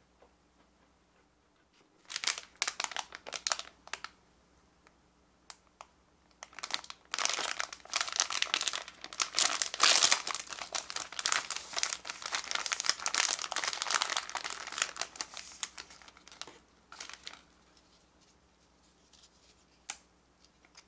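Plastic wrapper of a packaged dorayaki crinkling as it is handled and torn open. Bursts of crackling start about two seconds in, grow dense and loud through the middle, then thin to a few light crackles near the end.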